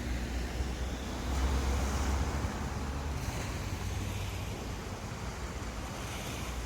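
Sea waves washing onto a beach as a steady surf noise, with wind rumbling on the microphone, heaviest in the first couple of seconds.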